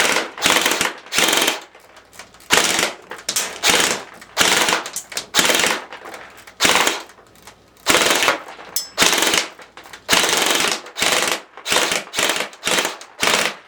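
Crosman Pulsar 72 electric airsoft gun (AEG) with a plastic gearbox, run on an 11.1 V LiPo battery, firing short full-auto bursts of about half a second each, one after another, some twenty in all.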